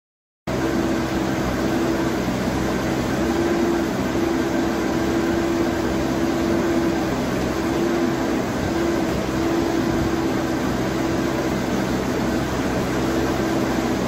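JCB 4CX backhoe loader's diesel engine running steadily under working load as the backhoe arm digs, with a higher whine that comes and goes over the engine hum. The sound cuts in abruptly about half a second in.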